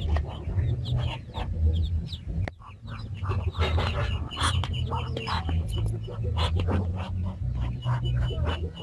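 A duck calling over and over in short squawks while a monkey grapples with it.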